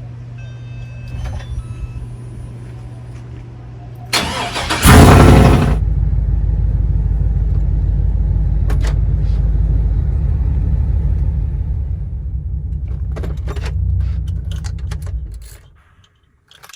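A steady low hum, then a truck engine cranking and starting about four seconds in with a loud burst as it catches. It runs steadily for about ten seconds before dying away near the end.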